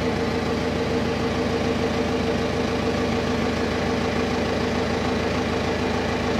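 Machinery running steadily in a fishing trawler's engine room: an unchanging mechanical drone with a strong low hum. The Mitsubishi S6R2 main engine on view is shut down, so the sound comes from other running machinery.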